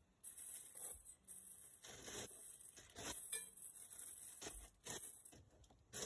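Ceiling-fan packaging and parts being handled: rustling, with a few light clinks and knocks.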